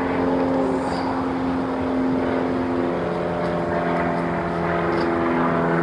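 A steady motor or engine hum, holding one pitch and then dropping to a lower one about three seconds in.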